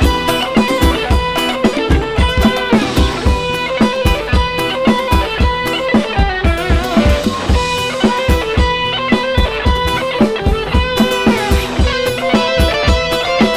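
Instrumental music: guitar over a steady drum-kit beat, with no singing.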